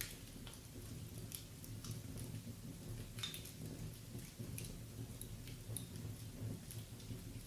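Wood fire burning in a fireplace: scattered sharp crackles and pops, several a second, over a low steady rumble.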